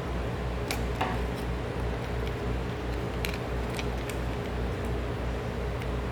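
Scattered light clicks and taps of machine parts being handled during disassembly, over a steady low hum that pulses a couple of times a second.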